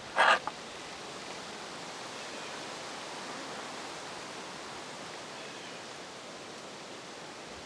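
Steady rushing forest ambience, with a few faint distant bird chirps. Right at the start comes a short, loud scraping rustle lasting about a third of a second.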